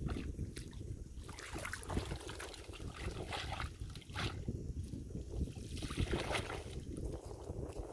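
Water trickling and splashing off a wet cast net as it is lifted from a shallow pool and gathered by hand, in short irregular spatters, over a steady low wind rumble on the microphone.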